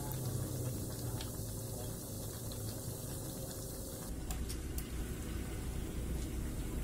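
Battered tempeh deep-frying in a wok of hot oil, sizzling and bubbling steadily with fine crackles. About four seconds in the sound changes, with sharper crackles and clicks.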